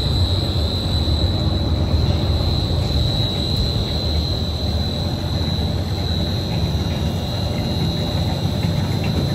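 Machinery of a 2D snack pellet extrusion line running: a steady low hum with a constant high-pitched whine over it.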